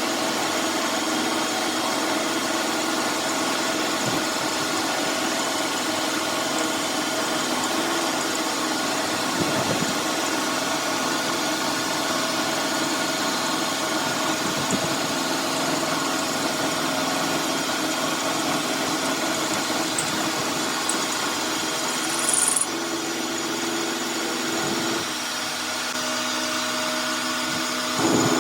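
A workshop machine tool's motor running steadily with a hum. A short hiss comes a little after 22 s, and the hum changes its pitch pattern just after that and again a few seconds before the end.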